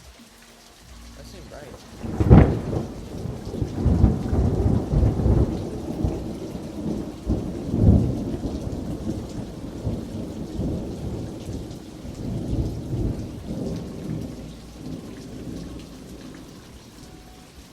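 A close thunderclap: a low rumble builds, then a sharp crack about two seconds in. Long rolling rumbles follow, peaking several times and slowly dying away, with rain falling throughout.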